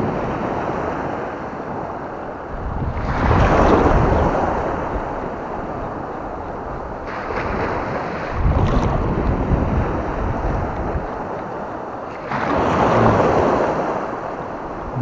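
Wind buffeting the microphone over the wash of small sea surf, swelling and easing about every four to five seconds.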